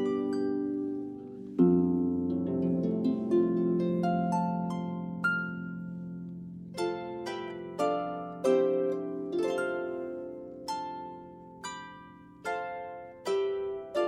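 Harp playing a slow, gentle melody: plucked notes ring and fade over low chords. A bass chord is struck about a second and a half in, and in the second half single notes are plucked about one a second.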